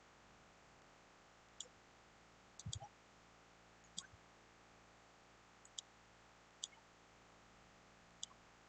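Computer mouse clicking: single sharp clicks every second or two, with a quick double click about two and a half seconds in, over faint hiss.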